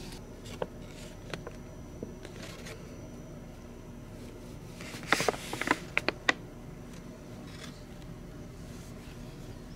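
Paper owner's manual being handled and its pages turned: a few light clicks, then a brief rustle with several sharp ticks about five to six seconds in, over a faint steady hum.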